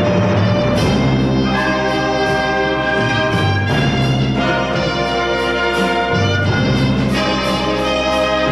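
Live orchestra playing, with trumpets and trombones prominent in sustained chords that change every two to three seconds.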